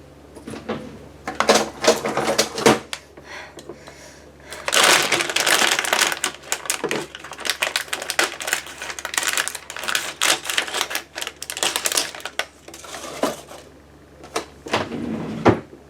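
Rapid clicking and rustling of cardboard and plastic packaging being handled and opened, with a few scattered clicks at first and a busy stretch through the middle.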